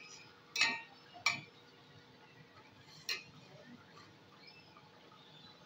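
Stainless-steel perforated skimmer clinking against the side of a steel pot as it stirs softened bottle gourd pieces: three short ringing knocks, about half a second in, just past a second, and about three seconds in.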